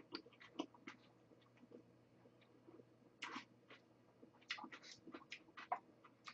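Faint mouth sounds of someone chewing a mouthful of noodles: scattered soft wet clicks, a little thicker about three seconds in and again through the last couple of seconds.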